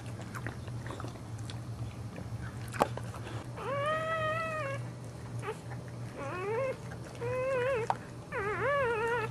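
Newborn Boxer puppy crying: four high, thin cries in the second half, the first held steady for about a second, the next three shorter and wavering in pitch, while the mother licks it clean with soft wet licking sounds and one sharp click near the start.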